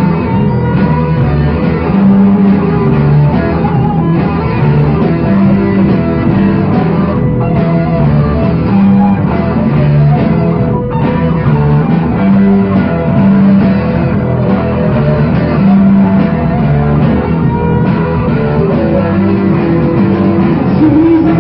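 Rock band demo recording playing an instrumental, guitar-led passage.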